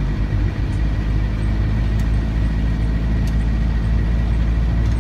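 Isuzu Panther 2.3's four-cylinder diesel engine running steadily at low speed, heard from inside the cabin, with road noise from the wet street. A few faint sharp ticks sound over it.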